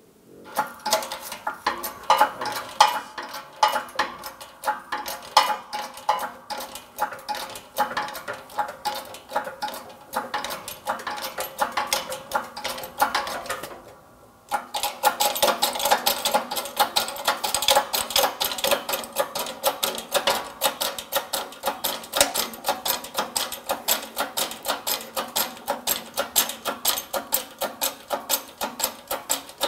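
Hydraulic shop press being pumped under load to force a wheel hub out of a steering knuckle: a fast, steady run of clicks. It stops for about a second about halfway through, then resumes louder.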